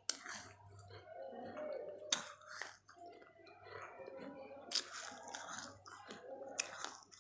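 Crunching and chewing of pieces of a baked clay pot (matki) held close to the mouth: four sharp crunching bites a couple of seconds apart, with gritty chewing between them.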